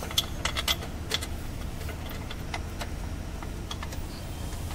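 Sharp, uneven clicks and clinks of tools and parts being handled under a car: a quick run of them in the first second, then a few single ones spread out, over a steady low hum.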